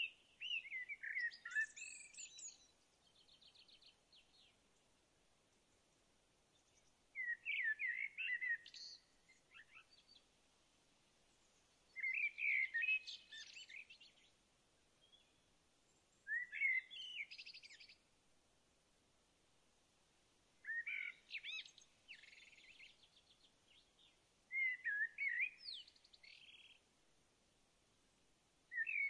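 A songbird singing, repeating a short phrase of quick slurred, swooping whistled notes every four to five seconds.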